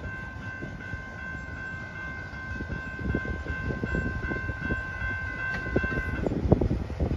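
Railroad crossing warning bell ringing steadily as the crossing gates rise, cutting off about six seconds in. Underneath, a low rumble of the departing freight train with scattered knocks.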